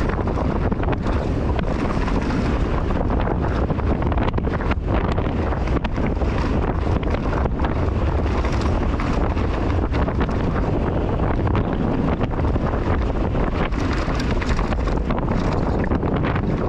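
Wind rushing over the camera microphone as a downhill mountain bike descends a dirt and rock trail at speed, with frequent knocks and rattles from the bike and tyres over loose stones and rough ground.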